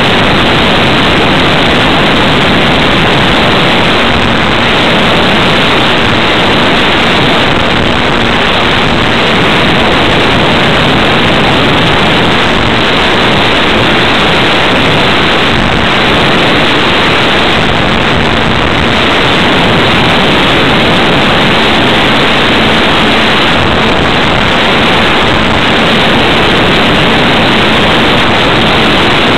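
Steady, loud rush of airflow and propeller noise picked up by a small camera riding on an electric ParkZone T-28 Trojan radio-controlled model plane in flight, with a faint low hum that comes and goes.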